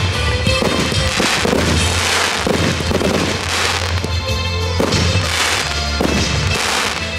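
Aerial fireworks shells bursting one after another, each report trailing into a fading crackle, with music playing steadily underneath.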